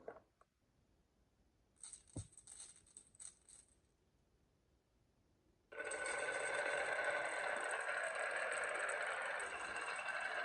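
Marbles on a toy marble run: a few light clicks and rattles, then from about six seconds in a steady rolling rattle as they run down the track.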